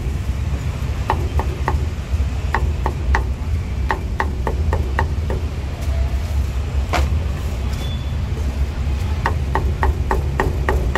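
Meat cleaver chopping roast meat on a thick round wooden chopping block: quick runs of sharp knocks, about five a second, in several bursts with pauses between. A steady low hum runs underneath.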